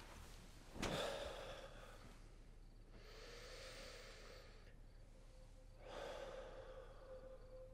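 A young man's deep breaths: a sharp exhale about a second in, a long breath from about three to five seconds, and another breath near six seconds. A soft held music tone comes in underneath about halfway through.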